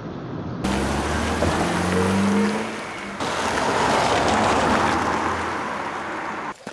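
Police patrol car engine running and rising in pitch as it accelerates, then a steady rush of engine and road noise as it drives.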